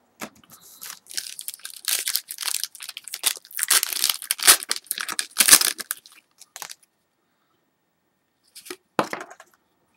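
Foil wrapper of a 2011 Certified football card pack being torn open, a crinkling crackle lasting about six seconds, then two short rustles near the end.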